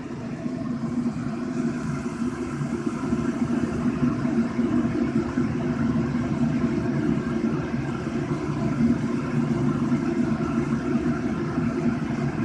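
Wind tunnel fan running steadily, blowing air through the test section at about 28 mph: a low hum under a steady rush of air, growing louder over the first couple of seconds and then holding.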